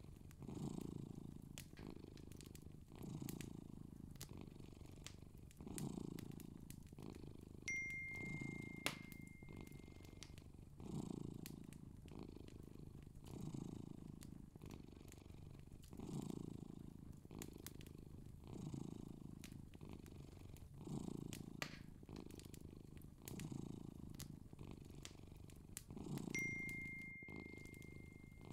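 A cat purring in slow, even swells, one about every two and a half seconds. A thin, high steady tone sounds twice over it, about eight seconds in and again near the end.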